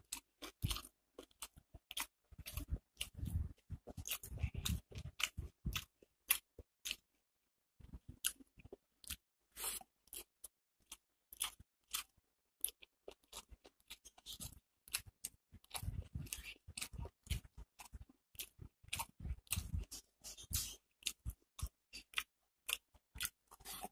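Close-up chewing and crunching of crisp fried onion pakora with rice: irregular sharp crunches and wet clicks of the mouth, with a brief pause about seven seconds in.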